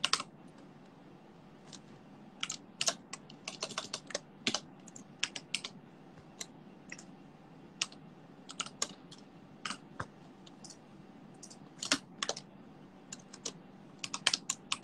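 Typing on a keyboard: irregular runs of light key clicks with short pauses between them.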